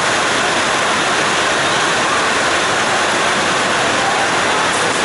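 Steady, loud hiss of heavy rain falling, unbroken throughout.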